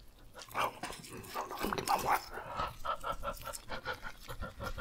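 A man making playful, animal-like vocal noises: scattered short sounds, then a quick run of short breathy sounds, about five a second, in the second half.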